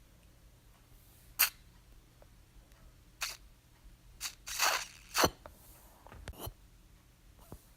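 Baby nasal aspirator sucking snot from a nose: about six short sucks spread over several seconds, the longest and loudest around the middle.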